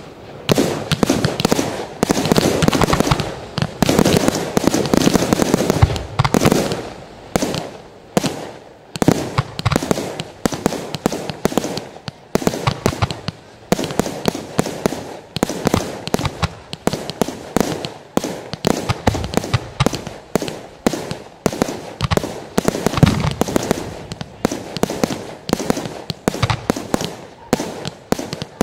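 Aerial fireworks going off in a continuous rapid barrage: a dense mass of bangs and crackle for the first several seconds, then sharp reports several times a second.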